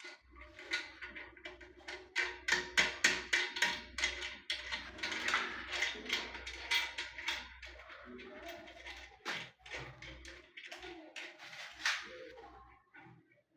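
Quick, irregular clicks and taps of a tool working the fixing screws that hold a close-coupled toilet cistern to the pan, thickest in the middle and thinning out near the end.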